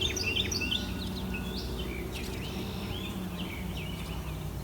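Small birds chirping in many short, high notes, thickest in the first second or so and scattered after, over a low steady background rumble.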